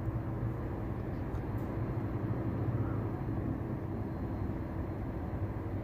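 A steady low mechanical hum with a few pitched tones, unchanging throughout.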